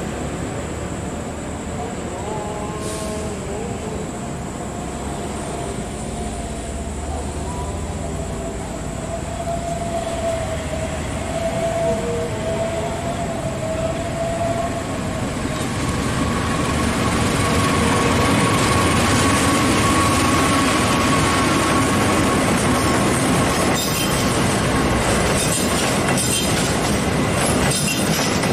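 Passenger train approaching and passing close by, its running noise growing louder from about halfway. A steady high wheel squeal runs through the middle, and near the end comes the rhythmic clatter of the carriage wheels over the rail joints.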